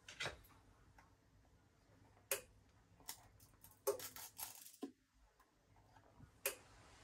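A few faint, scattered clicks and taps of small repair tools and phone parts being handled on a workbench, about five in all.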